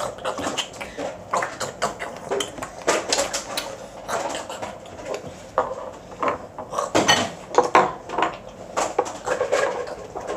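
Plates and utensils being handled: irregular small clicks and clinks throughout.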